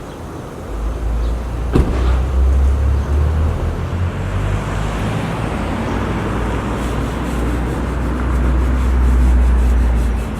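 Steady low rumble of a running vehicle engine with road-traffic noise. There is one sharp knock about two seconds in.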